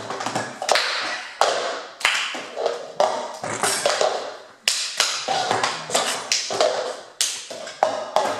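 Cups slapped and tapped on a wooden table, mixed with hand claps, in a quick repeating cup-game rhythm of several sharp taps a second.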